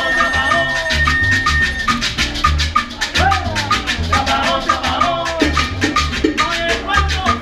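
Salsa music with repeating bass notes and a fast, even shaker rhythm under a melody line.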